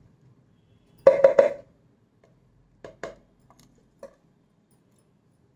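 Glass storage jars knocking and clinking as they are handled. There is a quick, loud cluster of knocks about a second in, then a few lighter single clicks.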